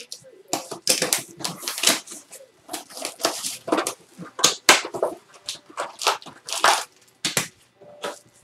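Plastic or foil trading-card packaging being torn open and crinkled, with cards handled, in a quick irregular run of crackles and rustles.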